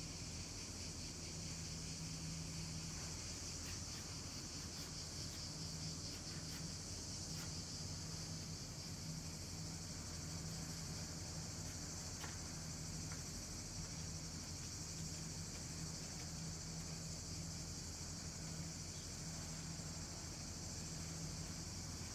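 A chorus of cicadas shrilling steadily, a dense high buzz with a fast pulse in it. A low hum comes and goes underneath.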